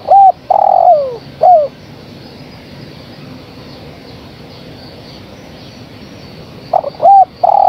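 Spotted dove (tekukur) cooing, presented as a female calling to males as a lure call. Two phrases, one at the start and another near the end, each a couple of short notes, a long coo that slides down in pitch, then a short closing note.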